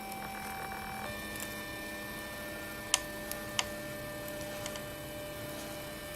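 Stepper motors of a Printrbot+ 3D printer whining with steady tones during a print, the pitch jumping to a new tone about a second in as the motion changes. A couple of sharp clicks come about halfway through.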